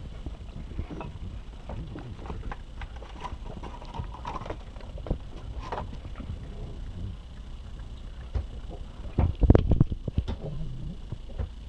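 A dog moving about: irregular clicks and knocks, with a louder cluster of thumps about nine seconds in.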